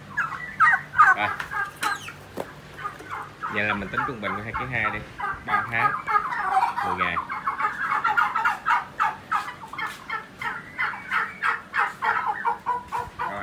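A flock of young large-breed turkeys calling over one another in rapid, high chirps, with a few lower, wavering calls about four and seven seconds in.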